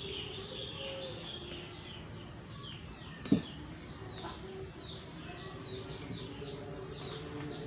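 A small bird chirping over and over in short, quickly falling high notes, with a single sharp knock a little over three seconds in.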